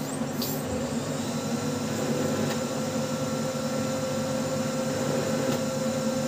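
Brother DCP-L2540DW laser printer running a test print, its motors and fan giving a steady whir.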